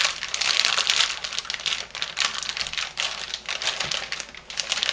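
Paper mould liner crinkling and crackling as it is pulled back and a slab of homemade soap is lifted out of a baking dish: a dense, uneven run of small crackles.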